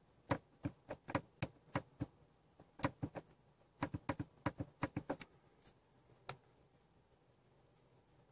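Repeated clicks of the instrument cluster's push button on a 2005 Mercedes-Benz CLK500, pressed over and over in quick irregular runs to page through the dashboard display. The clicks stop about six seconds in.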